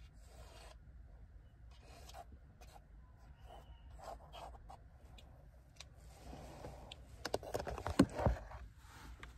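Pencil sketching on a paper sketchbook: short, scratchy strokes. Between about seven and eight and a half seconds in comes a cluster of louder sharp knocks and handling noise as the sketchbook is shifted, the loudest near eight seconds, all over a low steady hum.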